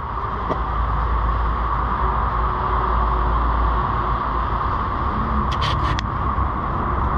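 Steady riding noise from a BMW F 850 GS motorcycle under way: continuous wind rush and road drone with a deep rumble. A few light clicks come a little over halfway through.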